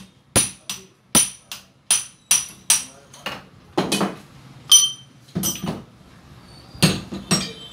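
Sharp metal clinks and knocks, about fourteen at an uneven pace of roughly two a second, each with a brief high ring. They come from a gas mono-shock absorber clamped in a bench vise: its steel piston rod is jerked up and down in its tube, metal striking metal.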